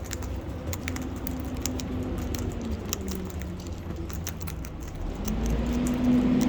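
Birds pecking and crunching at food: rapid irregular small clicks and cracks, over a low rumble. A steady low hum comes up and grows louder near the end.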